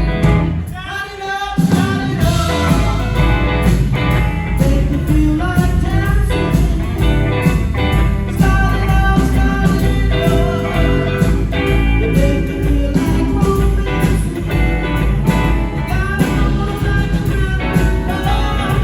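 Live rock band playing a guitar-led passage over bass and drums, with the low end dropping out briefly about a second in.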